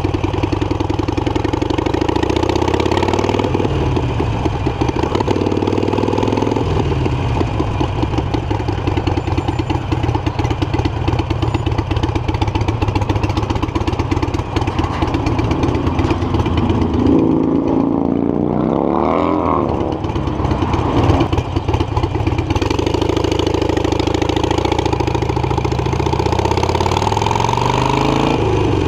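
Harley-Davidson Iron 883's air-cooled 883 cc V-twin, heard from the rider's seat. The engine note rises in pitch several times as the bike pulls away and shifts up through the gears, with a steadier stretch at a stop in the middle.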